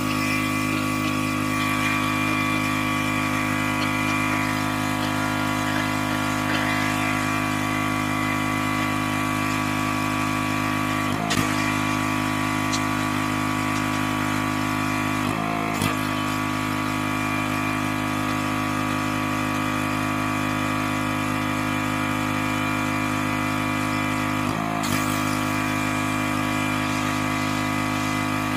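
Pressure washer engine running steadily under a hiss of spray, with three short knocks at about 11, 15 and 25 seconds in.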